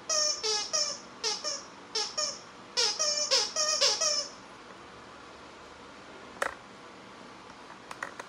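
A squeaky plush dog toy squeaking about a dozen times in quick succession as a dog bites and chews it, stopping after about four seconds. A single sharp click follows a couple of seconds later.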